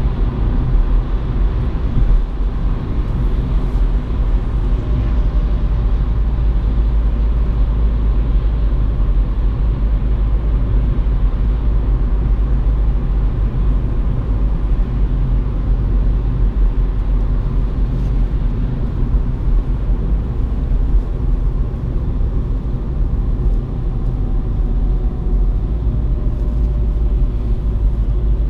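Inside the cabin of a Seat Ibiza's 1.6 TDI four-cylinder diesel at a steady road speed: a steady low engine and drivetrain drone with tyre noise from the wet road.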